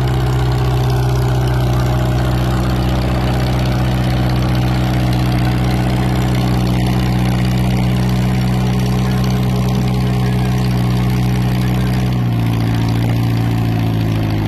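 An engine running steadily at a constant speed, dropping to a slower speed about twelve seconds in.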